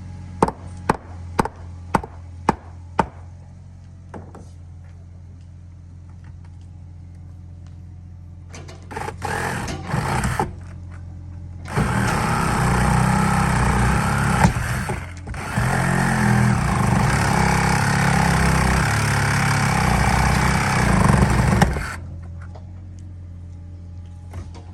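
Six sharp knocks about half a second apart, then a power saw starts in short bursts and runs cutting steadily for about ten seconds, enlarging a window opening in the cabin wall. A steady low hum runs underneath.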